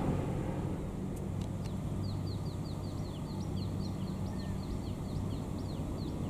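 A bird calling in a rapid series of short, high, downward-sliding chirps, about two to three a second, starting about a second in. Under it runs a steady low rumble of distant jet aircraft noise across the airfield.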